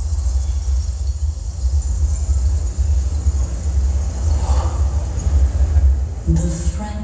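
Deep, loud bass rumble from a show's sound system, heard through a small camera microphone, with almost nothing above it. Near the end, pitched musical notes come in over it.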